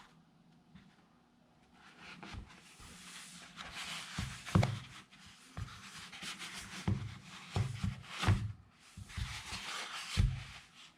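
Hands handling and opening a guitar pedal's box and packaging: rustling and scraping with several soft thumps, starting about two seconds in.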